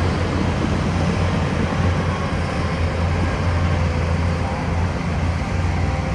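Diesel engine of heavy earthmoving machinery running steadily, a low drone at an even level.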